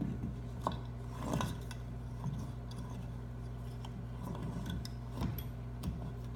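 A few scattered light clicks and knocks of a black plastic weedless propeller being handled, pushed and twisted onto a Minn Kota trolling motor's prop shaft, over a steady low hum.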